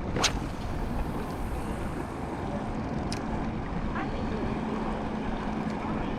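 Wind buffeting the microphone over water, with a steady low motor hum from a boat that comes in about halfway through. Two sharp clicks, one near the start and one about three seconds in.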